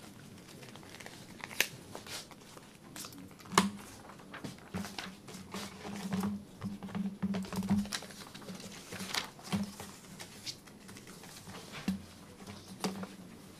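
Irregular crinkling and scattered clicks, as of paper or small objects being handled.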